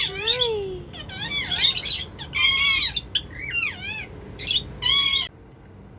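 Pet parrots calling: a quick run of short chirps and squawks that slide up and down in pitch, stopping a little after five seconds in.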